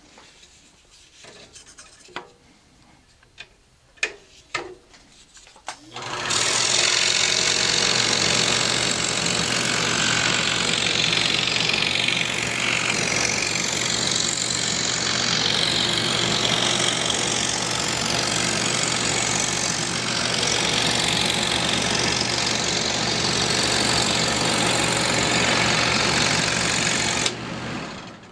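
An Excalibur 21 scroll saw switches on about six seconds in and runs steadily, its blade cutting a piece of thin plywood: a constant low motor hum under the rasp of the blade. It stops abruptly about a second before the end. Before it starts there are a few light knocks and clicks as the workpiece is set on the table.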